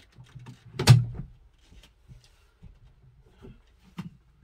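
A swivelling van seat from a Nissan Elgrand being handled and its mechanism worked: one loud clunk about a second in and a smaller knock near the end, with faint rattles and rustling between.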